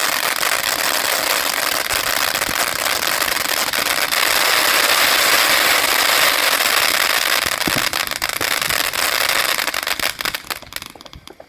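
Firework fountain spraying sparks: a continuous loud hiss packed with crackles, strongest midway and dying away shortly before the end.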